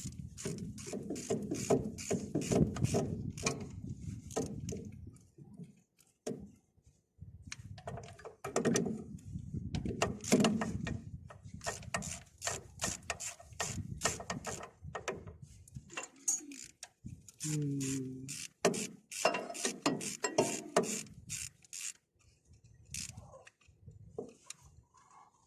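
Hand tools working metal parts of a bulldozer's oil cooler assembly: runs of rapid clicking and scraping, with short pauses.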